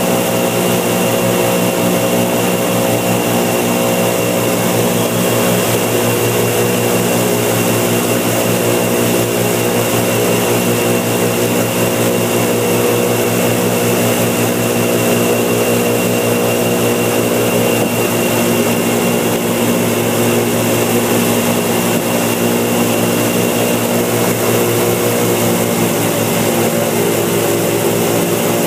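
Motor of a small aluminum flood boat running steadily under way, a loud, even engine drone at one unchanging pitch with a steady hiss over it.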